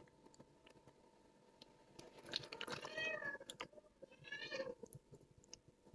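A cat meowing faintly twice, each call rising then falling in pitch, about three seconds in and again a second and a half later, over a few soft clicks of a spatula against a plastic cup.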